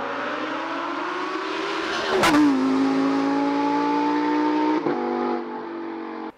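Lamborghini Huracán Performante Spyder's V10 engine accelerating hard, its pitch rising. About two seconds in there is an upshift with a sharp crack, and the pitch drops. It then climbs again more slowly in the next gear, and the sound cuts off abruptly near the end.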